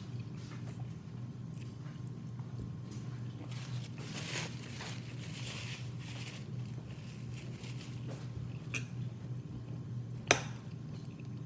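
Eating sounds: soft chewing and small clicks of food being handled, with one sharp click about ten seconds in, over a steady low hum.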